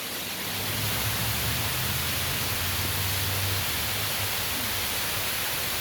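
Steady hiss of heavy rain and water, with a low rumble coming in about half a second in and fading after about four seconds.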